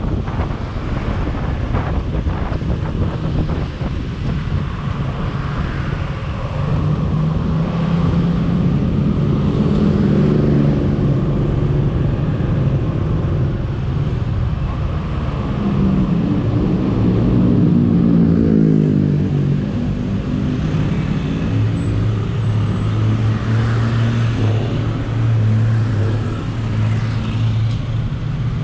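Motor scooter's engine running in city traffic, with wind and road noise on the microphone. The engine's pitch rises and falls in the middle and holds a steady low hum for the last several seconds.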